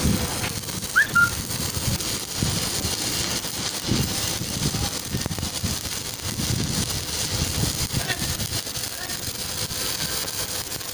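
Electric arc welding on a steel loader bucket, the arc crackling and sputtering steadily with no breaks. A short high chirp sounds about a second in.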